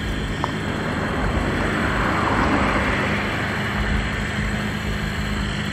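Steady car engine noise with a low hum, swelling a little a couple of seconds in.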